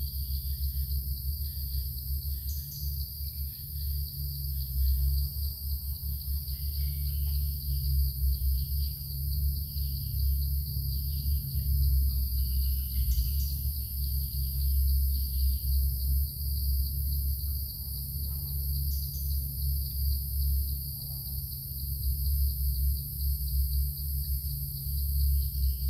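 Steady, high-pitched drone of insects, with an uneven low rumble underneath that is the loudest part, and a few faint clicks.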